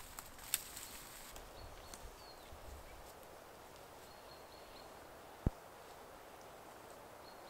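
Faint footsteps of a person walking over dry grass and forest floor, with two sharp clicks, about half a second in and about five and a half seconds in, and a thin high whistle heard faintly a couple of times.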